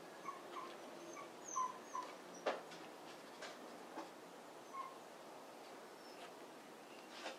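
Foam sealing strip being fitted by hand along the edge of a plastic air-intake duct: a few light clicks and taps, the sharpest about two and a half seconds in, with faint short squeaks scattered through.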